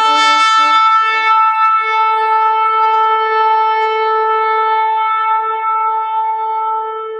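Shofar blown in one long held note, rich in overtones, with a rough, wavering start that settles into a steady tone and weakens slightly near the end.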